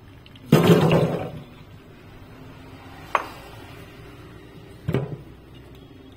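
Soaked cashews and their water tipped into a perforated stainless steel strainer in a steel sink: a splashing clatter about half a second in that dies away over about a second, followed by a sharp ringing clink and later a knock of dishes against steel.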